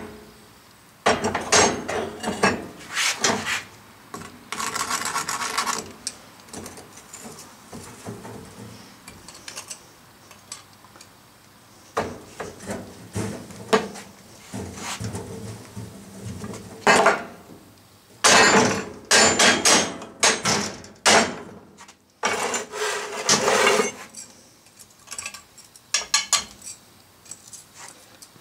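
Round metal molding flask being broken out after an aluminum casting pour: the top half lifted off with metal knocks, then packed foundry sand dug and scraped out around the casting. Irregular knocks and clinks with several stretches of gritty scraping.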